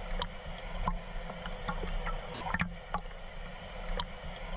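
Water sloshing and lapping against a half-submerged waterproof camera, muffled, with irregular clicks and pops, over the steady rush of a small waterfall.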